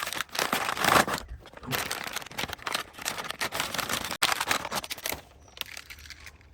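Plastic toy packaging crinkling and rustling in the hands as it is opened, a dense run of crackles that dies away about five seconds in.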